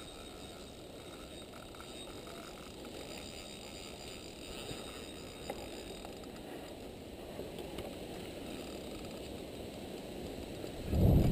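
Spinning reel turning and rod being handled during a lure retrieve, heard as a steady low rustle and rumble, with a loud knock near the end.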